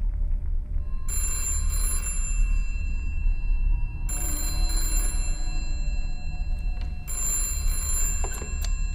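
Old desk telephone bell ringing three times, each ring about a second long and about three seconds apart, over a low steady drone. A sharp click comes near the end.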